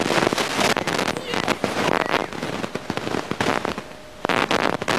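Water splashing and sloshing in a paddling pool as a child's hand paddles in it, heard as a dense run of irregular crackling splashes that thins out briefly near the end.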